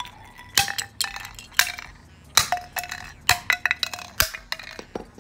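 Stanley claw hammer repeatedly striking a cheap plastic earbud charging case on concrete: about eight sharp blows in quick succession, some followed by a short ringing tone, as the case breaks apart.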